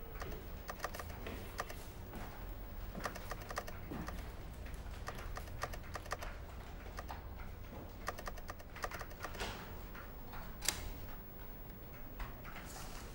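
Desk calculator keys being tapped in quick, irregular runs of clicks, with one sharper click about three-quarters of the way through, over a low steady hum.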